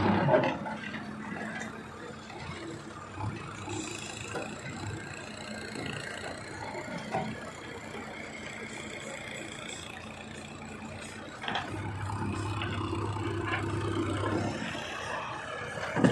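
JCB backhoe loader's diesel engine running steadily while the backhoe arm works a boulder, with a few short knocks. About three quarters of the way through, the engine grows louder for a few seconds.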